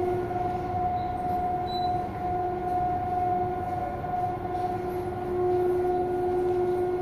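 Inside a CPTM Série 2000 electric multiple-unit train: a steady rumble with a constant electrical hum over it.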